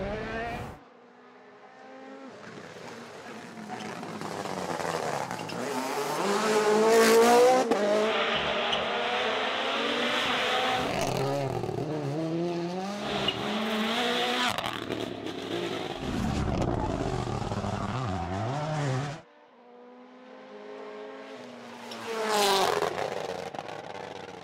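WRC Rally1 cars' turbocharged four-cylinder engines revving hard and changing gear as they come past on a stage, the note rising and falling. Two cars pass loudly, about seven seconds in and again near the end, with a few abrupt cuts between clips.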